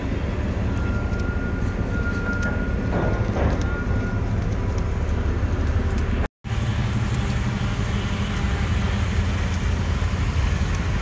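Steady low engine rumble, with a thin high tone held for about three seconds near the start and a brief total dropout a little past the middle.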